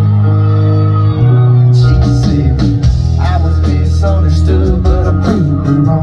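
A live country-rock band playing loud through a concert PA. Bass and guitar chords are held at first, then the drums and cymbals come in about two seconds in, with electric guitar notes bending over them.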